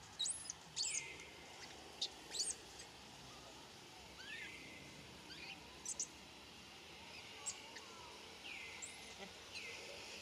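Short, high-pitched chirping calls come every second or so, some arching sharply up and down and others gliding down and then holding level, over a faint steady background hiss.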